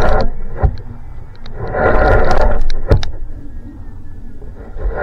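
Wind buffeting the microphone over choppy water, with a constant low rumble, and waves splashing against a kayak's hull in surges every two to three seconds, plus a few sharp knocks.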